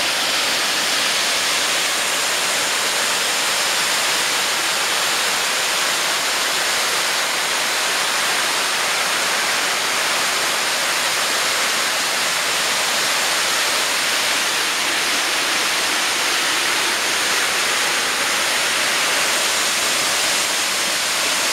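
Waterfall heard close up: water pouring over a layered rock cliff and splashing onto rocks and into a shallow pool, a steady, unchanging rush.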